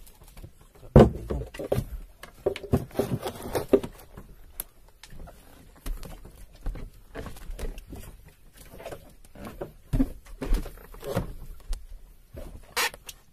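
Irregular knocks and thumps of people moving about on a small outrigger boat's deck, the loudest about a second in.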